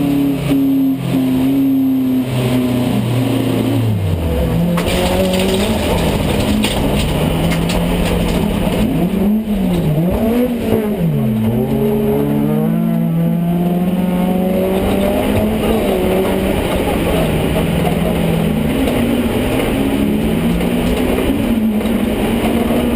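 Rallycross car's engine heard from inside its stripped cabin at racing speed, the pitch climbing and falling over and over as the driver accelerates and lifts, with a few sharp drops in pitch about four seconds in and again near the middle.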